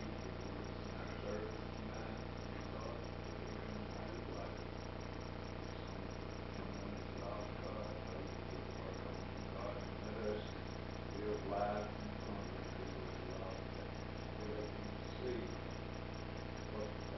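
A man's voice praying aloud, faint and too far from the microphone to make out, in short phrases over a steady low hum and hiss.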